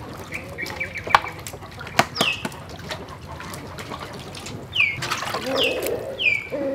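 Food preparation in metal bowls: sharp clicks of duck eggs being tapped and cracked against a steel bowl, and water splashing as raw chicken drumsticks are rinsed by hand, loudest about five seconds in. Short falling bird chirps sound several times in the background.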